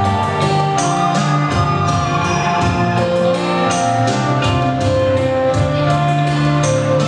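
Music for a Cambodian dance: sustained melodic lines over a steady percussive beat.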